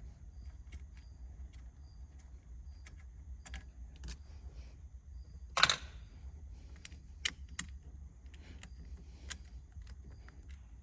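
Hand tools clicking and knocking against metal while a car's steering wheel is being taken off by hand, with one sharper clack about halfway through, over a steady low hum and a faint high blip repeating about every two-thirds of a second.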